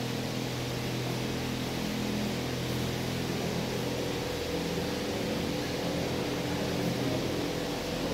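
Steady low hum with an even hiss: room background noise.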